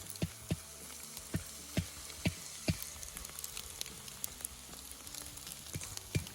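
Fish in foil sizzling on campfire coals, with sharp crackling pops: a run of them in the first three seconds, then one more near the end.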